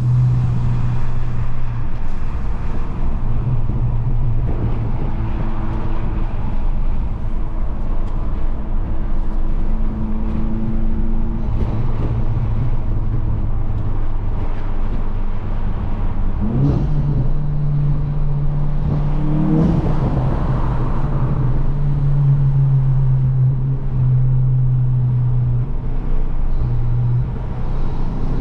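Volkswagen Mk8 GTI's tuned turbocharged four-cylinder engine and aftermarket catback exhaust under way, a steady drone whose pitch shifts with the revs. The revs climb briefly twice a little past halfway and again at the end.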